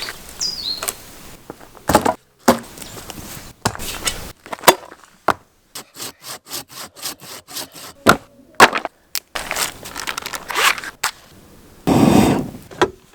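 A string of sharp cracks and scraping sounds, as of wood being worked or handled, coming in quick separate strokes with sudden gaps between them.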